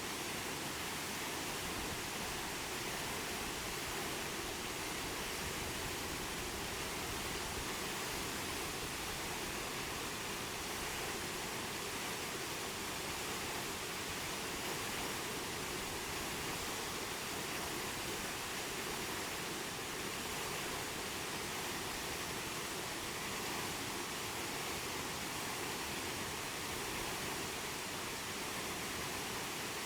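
Waterfall's steady rush of falling water, an even, unbroken hiss.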